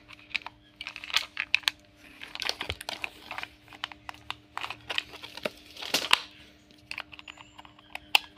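Irregular light plastic clicks, taps and scraping as hands handle a toy RC car's steering-wheel remote and refit its battery cover.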